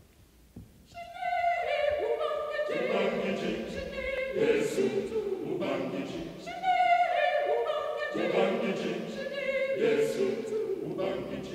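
Mixed choir of men's and women's voices singing unaccompanied, coming in about a second in. Each phrase opens on one strong high line and the fuller choir joins a moment later, twice over.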